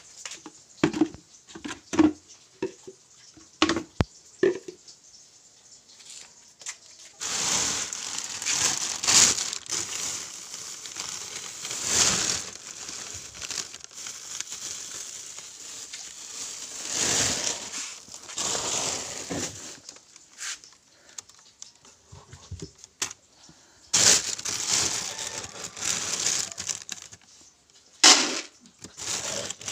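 A thin plastic bag being handled and crumpled, in long bouts of crinkling rustle. Before that, a few sharp knocks of hard plastic, like a dipper against a bucket, sound in the first few seconds.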